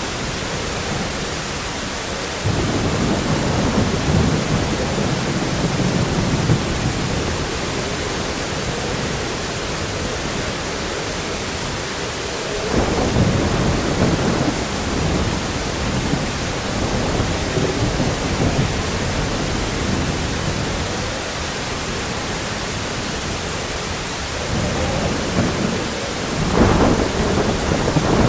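Thunderstorm sound effect: steady heavy rain and wind with rolling thunder. Low rumbles break in about two and a half seconds in and again around the middle, and the loudest comes near the end.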